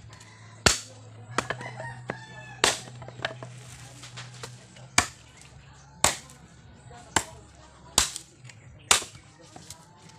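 Machete chopping a dry wooden plank into kindling: about eight sharp chops, roughly one a second. A rooster crows about a second or two in.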